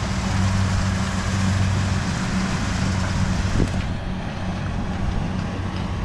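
Farm machinery engine running steadily with an even low hum. A higher hiss above it drops away about four seconds in.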